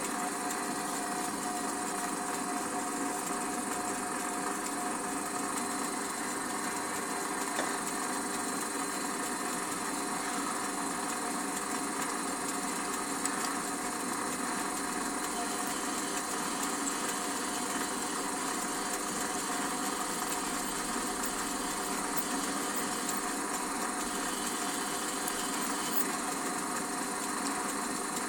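An Opti D180x300 Vario benchtop lathe running steadily while drilling holes in pulleys: an even mechanical whine with a few fixed tones over a hiss, holding the same level throughout.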